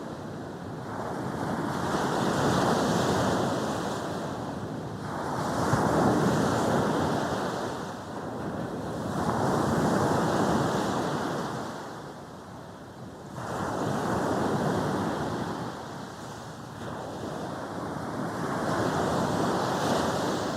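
Sea waves breaking and washing up a beach, the surf swelling and fading in turn about every four seconds.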